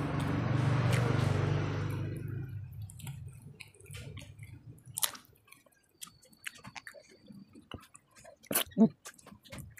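A low hum with a rushing noise fades away over the first two seconds or so; then come scattered wet clicks and smacks of eating by hand, chewing and fingers picking through fish and rice, with one louder smack near the end.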